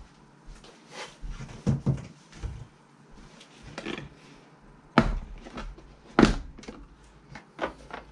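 Black hard plastic carrying case being handled on a table: a run of knocks and thuds as it is set down and gripped. Then two sharp snaps a little over a second apart as its latches are flipped open, followed by lighter clatter as the lid and foam insert are lifted.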